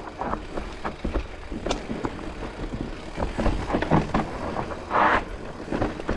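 Electric mountain bike riding down a dirt trail: tyres rolling and crunching over the ground with irregular knocks and rattles from the bike, and a short rush of noise about five seconds in.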